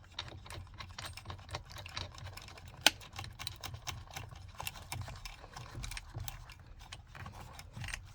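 Hand ratchet and socket clicking in short irregular runs as a steering wheel screw is driven back in, with one sharper click about three seconds in.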